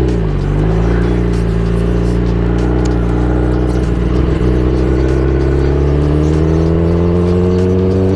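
Kawasaki ZX-10R's inline-four engine pulling away. A short rev falls off right at the start, then the engine note holds steady and rises slowly in pitch over the last few seconds as the bike gathers speed.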